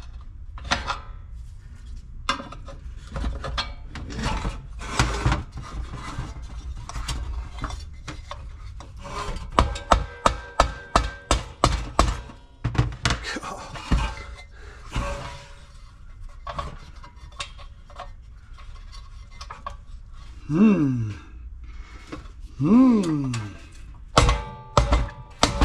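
Rubber mallet knocking on a Briggs & Stratton 550EX lawnmower engine's aluminium crankcase to part the sump cover from the block over a bent crankshaft. Metal parts rub and scrape between the blows. There is a rapid flurry of knocks about ten seconds in and another cluster near the end.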